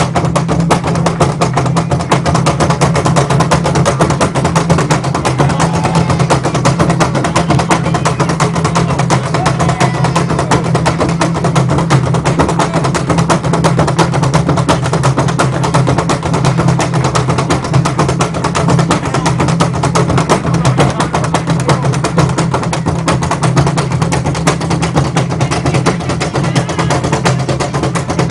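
Kamba Cuá drum ensemble playing a fast, dense rhythm on tall drums, loud throughout.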